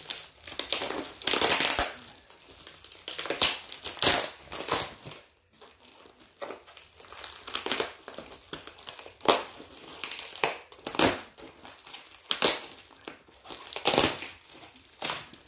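Heavily taped packaging being pulled and torn open by hand: irregular crinkling and crunching, loud one moment and quieter the next.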